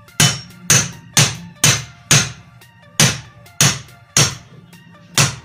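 Hammer lightly tapping a washing machine motor's end cap (bearing cup) back onto the motor body, about ten sharp blows at roughly two a second with a short pause about halfway through. Background music plays underneath.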